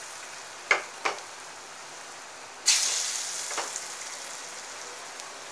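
Lentil-batter vadas deep-frying in hot oil in a kadai, sizzling steadily. About two and a half seconds in, a fresh vada is dropped into the oil and the sizzle flares up suddenly, then slowly settles. Two short clicks come about a second in.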